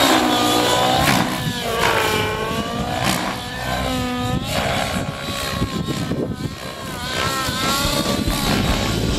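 YS 91 SRS glow engine and rotor of an Align T-Rex 700N RC helicopter flying 3D manoeuvres. The engine note dips and climbs back several times as heavy collective pitch from the wide-chord blades loads the engine.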